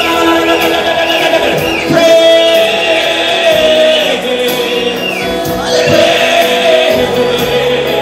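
A worship song: voices singing sustained, gliding melody lines over instrumental backing.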